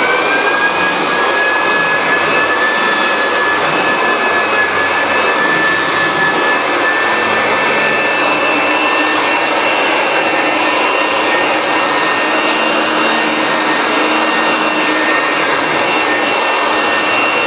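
Floor edger's electric motor running at full speed, its whine rising to pitch in the first second after switch-on and then holding steady, as it sands down seams and staple heads in plywood underlayment.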